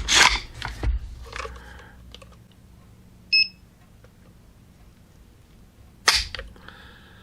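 Handling clicks on an unloaded AR-15 as it is readied for another trigger-pull measurement. About three seconds in, a digital trigger-pull gauge gives a short high beep. Near the end comes a single sharp click as the trigger breaks and the hammer falls on the empty chamber.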